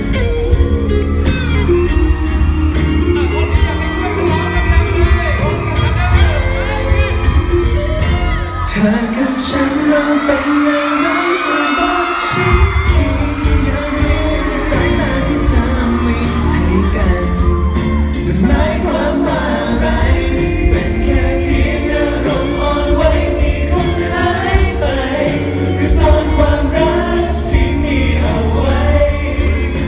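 Live pop song performed by a male vocal group: several voices singing into microphones over loud amplified music with a steady heavy beat, heard through a hall's PA. About nine seconds in, the bass and beat drop out for about four seconds, leaving the voices, then come back.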